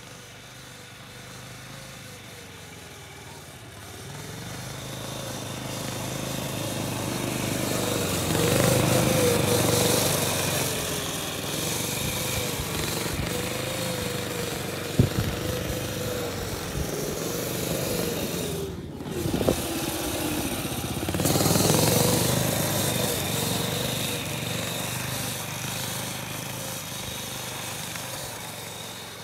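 A Yamaha SRX 120 kids' snowmobile engine running, its pitch wavering up and down with the throttle as the sled circles, getting louder as it passes close twice. There is one sharp click about halfway through.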